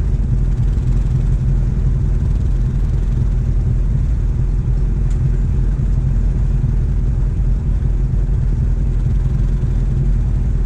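ATV engine running steadily at low throttle: a deep, even rumble with no revving.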